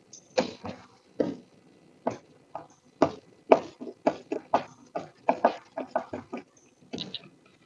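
Small screwdriver turning the screws of a plastic electric fence tester's back cover: an irregular run of short clicks and scrapes, a few each second.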